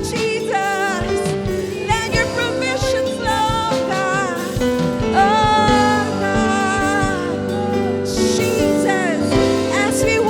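Worship music: a voice sings long, wavering held notes over steady band chords and a soft beat.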